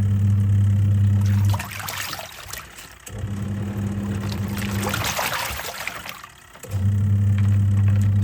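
Twin-tub washing machine's wash motor humming in three spells of about one and a half to two seconds, stopping between each as the pulsator reverses. Water swishes and splashes in the tub through the pauses.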